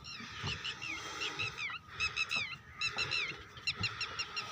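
Small birds chirping over and over: short, high calls that slide downward, coming in quick clusters. There are a few dull low thumps among them.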